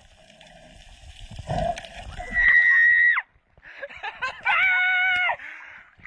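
Freediver breaking the surface with a short slosh of water, then two high-pitched excited cries: a thin squeal just past two seconds in and a held whoop about a second later.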